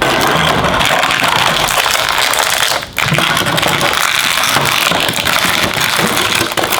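Toy packaging being handled and pulled open, with dense crinkling and crackling that breaks off briefly about three seconds in.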